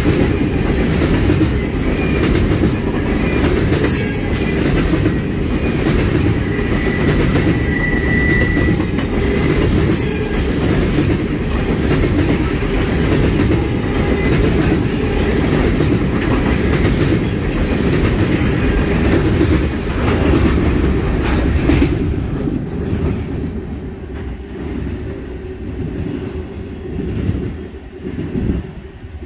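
Freight train of railroad tank cars rolling past close by, a steady rumble of steel wheels on the rails, with a brief high wheel squeal about seven seconds in. The sound fades from about 22 seconds in as the last cars pass and the train moves away.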